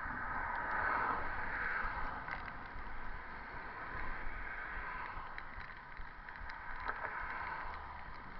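Steady rushing noise of a bicycle ride through traffic, wind and road noise, loudest about a second in, with a few faint clicks.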